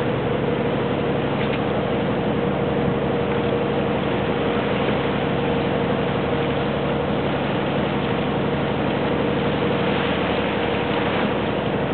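A motor-sailer's inboard engine running steadily under way: an even drone with a constant hum, and a rushing noise behind it.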